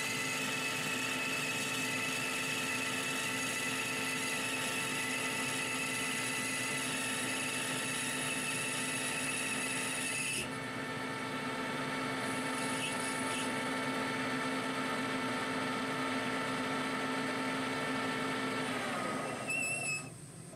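Colchester Bantam metal lathe running with a steady gear whine and hiss while it takes a final finishing cut on a brass bar; about halfway through the higher hiss stops. Near the end the lathe is switched off and its whine falls in pitch as the spindle runs down.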